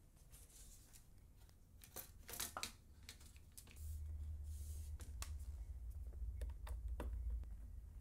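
Lenovo ThinkPad T470s bottom cover being pressed back into place by hand, with a scatter of light clicks and snaps as its edges seat. A low handling rumble comes in from about four seconds in.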